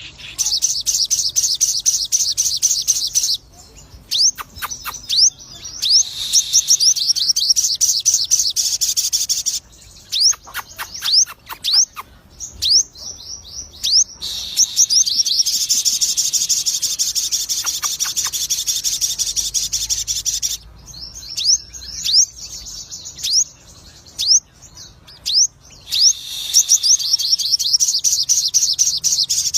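A lutino sogon songbird singing energetically: long runs of rapid, high, sharply sweeping chirps, broken by pauses filled with single sharp whistled notes.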